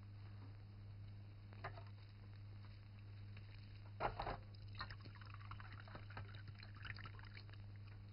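Faint, scattered clinks and scrapes of tableware as food is handled at a meal, with a louder knock about four seconds in. A steady low hum from an old film soundtrack runs underneath.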